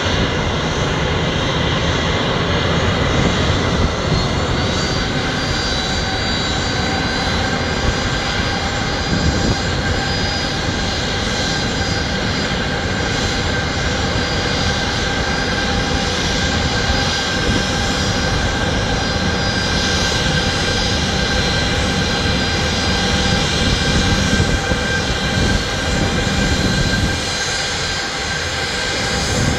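Boeing 737-800's twin CFM56-7B turbofan engines running at taxi power: a steady jet whine with several high tones over a rushing roar.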